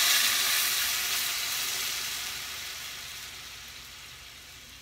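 Blended red chile sauce sizzling hard as it is poured into hot vegetable oil in a pot. The sizzle fades steadily as the sauce settles into the pan.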